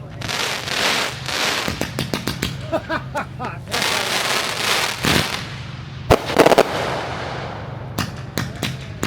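Aerial fireworks going off: hissing, crackling shells and a run of sharp pops, with the loudest bang and crackle about six seconds in.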